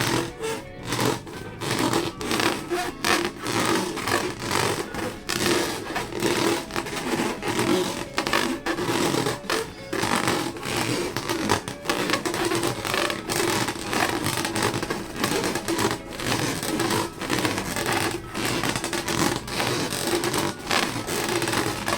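Background music over scratchy rubbing and crackling handling sounds.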